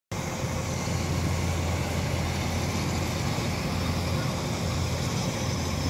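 Kubota rice combine harvester running steadily as it works through a standing rice crop, an even low engine sound.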